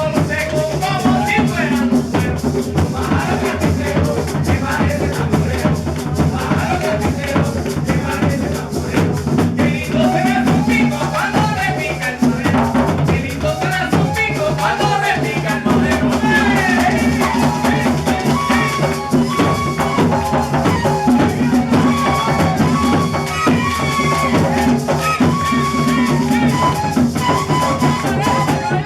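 A gaita zuliana ensemble playing, with maracas shaking and drums keeping the beat under the melody.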